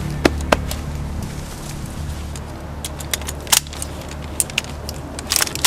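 Film-score background music with a steady low drone, broken by sharp cracks: two close together near the start, then a scattered cluster in the second half.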